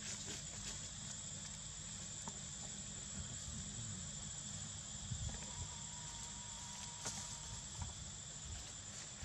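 Steady high-pitched insect drone, with a low rumble underneath and a few faint clicks.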